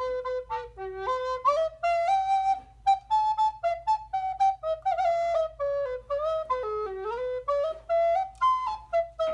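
A recorder played solo: a melody of short and held notes moving up and down mostly by small steps.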